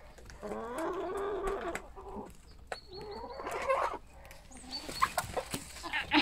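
Chickens clucking, with two longer drawn-out calls in the first four seconds, then quicker short clucks and sharp clicks near the end.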